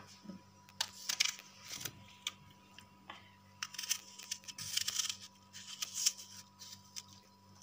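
Serrated knife cutting a raw apple by hand: crisp crunching and scraping strokes that come in irregular bursts, with a few light clicks.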